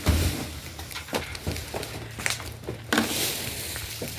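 Scattered knocks and clicks over a rustling hiss as a new refrigerator is unpacked, the rustling getting louder about three seconds in.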